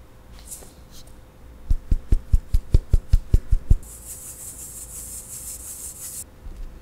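Metal fine-mesh sieve of cake flour and almond powder tapped about eleven times in quick succession, dull thumps about five a second, to sift the flour through. Then a steady high hiss for about two seconds as flour rustles through the mesh, stopping suddenly.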